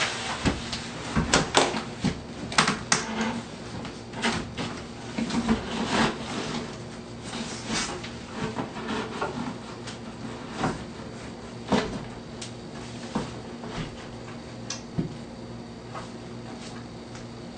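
A shower base being lowered and shifted into place on the floor: irregular knocks and clacks as it is handled, thicker in the first several seconds, then sparser.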